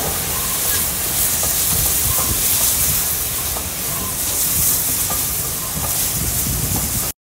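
Steady hiss of escaping steam from GWR Saint class steam locomotive No. 2999 'Lady of Legend', cutting off abruptly near the end.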